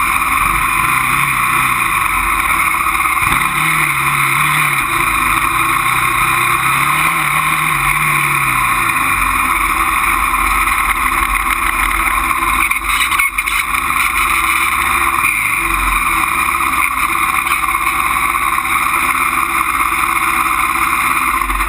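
Honda 400EX ATV's single-cylinder four-stroke engine running as the quad is ridden, its pitch rising and falling with the throttle over the first several seconds, under a loud steady rush of wind and riding noise on a camera mounted by the front shock.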